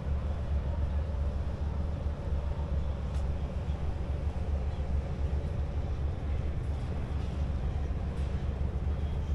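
Outdoor city ambience: a steady low rumble with no distinct events standing out.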